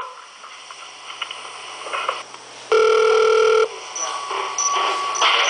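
A telephone tone heard over the phone line: one steady beep lasting about a second, amid faint line noise, as a call is placed.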